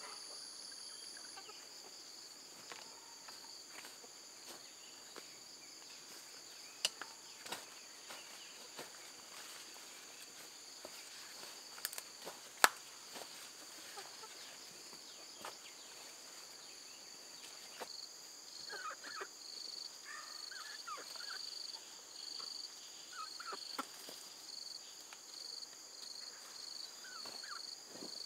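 Steady chorus of insects, one shrill buzz pulsing rapidly through the second half. Over it come a few sharp knocks of a hoe blade striking the soil, the loudest about twelve seconds in, and a few short bird chirps near the middle.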